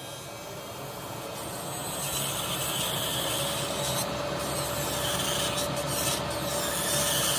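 Nail dust collector's electric fan starting up, rising over the first two seconds to a steady whir with a hiss of rushing air.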